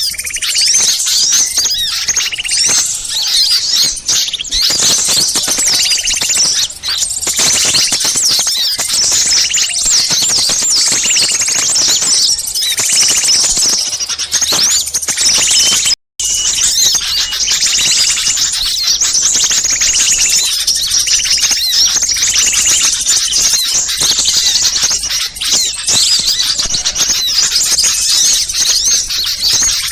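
Dense, noisy chorus of many small songbirds chattering and chirping over one another at once, a bird-lure recording meant to draw wild small birds in. The sound cuts out for a split second about sixteen seconds in, then resumes.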